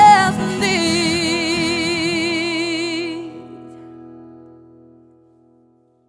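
Female voice holding the song's final sung note with a wide vibrato over a ringing acoustic guitar chord. The voice stops about three seconds in, and the guitar chord fades away to silence.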